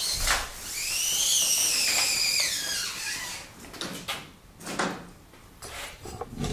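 A high-pitched squeak, rising then falling in pitch over about two seconds, followed by a few light knocks.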